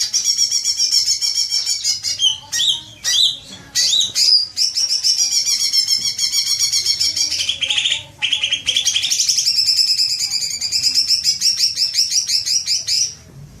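Greater green leafbird (cucak ijo) singing in long, very fast trills of high repeated notes, the ngekek song. Three long runs are broken by short varied phrases and brief pauses.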